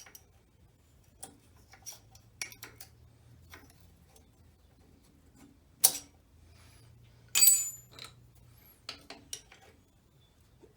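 Metal hand tools clinking and tapping against engine parts while a tight splined part is worked off its shaft, with one sharp knock about six seconds in and a louder ringing metal clank about a second and a half later.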